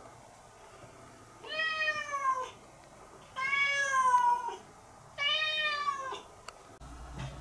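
A long-haired tabby cat meowing three times, each meow about a second long and falling slightly in pitch.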